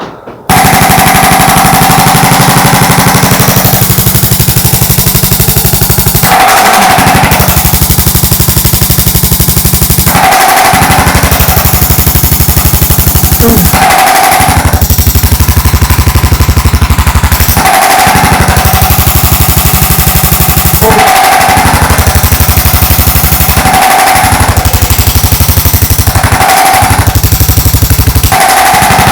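A handheld percussion device hammering very rapidly and steadily with a loud machine-gun-like rattle. It breaks off briefly every three to four seconds.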